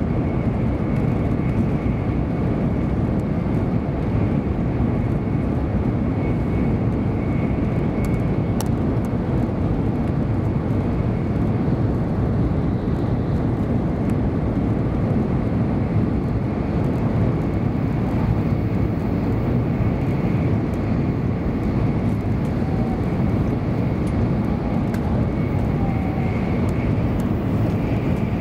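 Steady rumble of a 700 Series Shinkansen running at high speed, heard from inside the passenger cabin, with a faint steady high whine over it.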